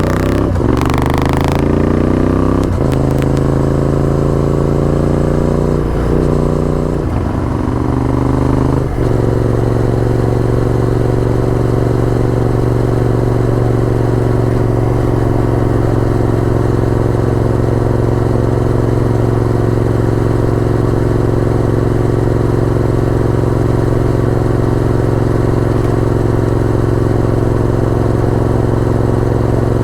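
Honda VTR1000F's 90-degree V-twin engine under way. It pulls up through the gears over the first nine seconds, its pitch rising in each gear and dropping at each upshift, then runs steadily at a constant cruising speed.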